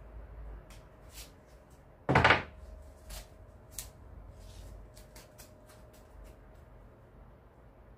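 Handling noises at a table: one loud thump about two seconds in, then scattered light clicks and rustles.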